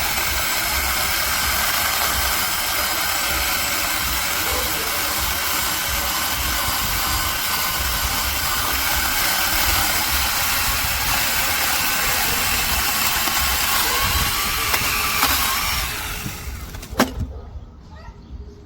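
Small cordless brushless mini chainsaw running steadily, a high motor and chain whine over a hiss, which winds down and stops about sixteen seconds in, followed by a sharp click.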